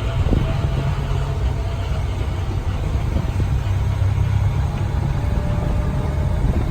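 Tour tram's engine running as the tram pulls away and drives on, a steady low drone with road noise.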